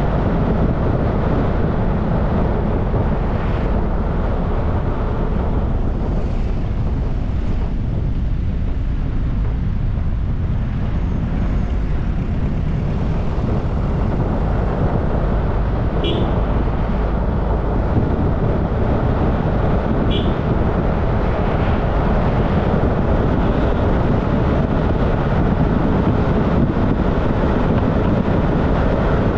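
Steady engine and road noise from a car on the move, heavy in the low end. Two short high chirps come through past the halfway point.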